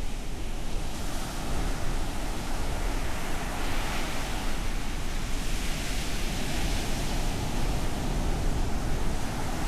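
Ocean surf on a beach: waves breaking and washing in a continuous rush that swells twice, with a constant deep rumble underneath.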